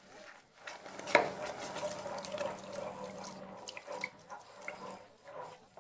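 Milk poured from a measuring jug into a saucepan of thickening white sauce (butter, flour and milk roux) while a wooden spoon stirs it: liquid pouring and wet stirring, with a sharp knock about a second in.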